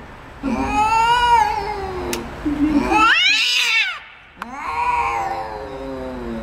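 Cats yowling at each other in an aggressive standoff: three long, drawn-out, wavering caterwauls in a row, the middle one rising to a high wail and falling again. It is a threat display between two tomcat-style rivals squaring off, not a call for attention.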